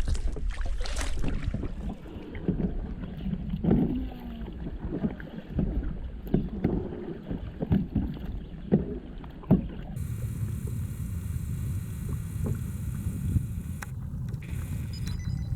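Kayak on the water: irregular paddle strokes and knocks over a low wind rumble on the microphone. About ten seconds in the sound changes abruptly to a steadier rumble with a faint hiss.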